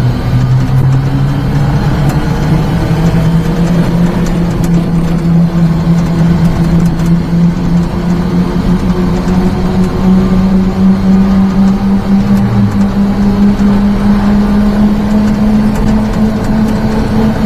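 Daihatsu Hijet mini truck engine pulling on light throttle, heard from inside the cab: a steady drone that steps up in pitch twice as speed builds.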